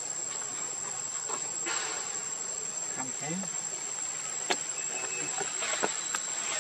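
A steady high-pitched insect chorus, a continuous drone, with scattered light clicks and rustles; the sharpest click comes about four and a half seconds in.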